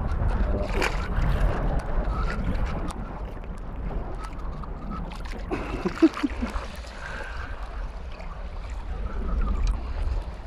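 Wind buffeting the microphone, with water sloshing and splashing around legs wading in shallow lake water. There is a brief sharp thump about six seconds in.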